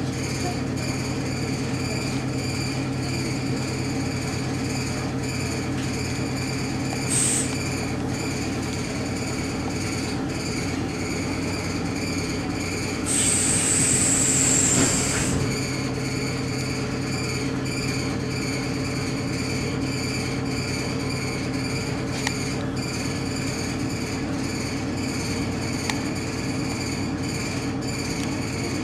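Interior running noise of an ER2T electric multiple unit in motion: a steady rumble with a constant low hum. A short high-pitched squeal about a quarter of the way in, then a louder one lasting about two seconds near the middle.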